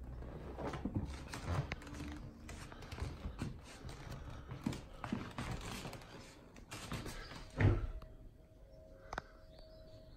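Kittens playing on a fabric armchair: claws scratching and scrabbling on the upholstery, with irregular soft thumps as they pounce and jump, and one louder thump about three quarters of the way through.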